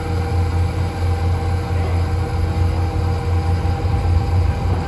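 Tractor engine running steadily with a low hum, with a steady whine from the powered drive that is raising the New Holland BigBaler 340's hood.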